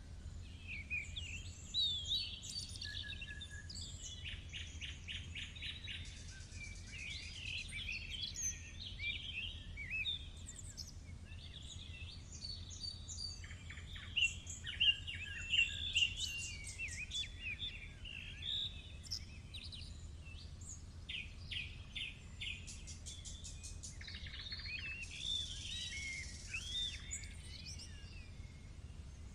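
Several small songbirds singing and chirping at once in quick, overlapping trills and calls, loudest about halfway through, over a low steady hum.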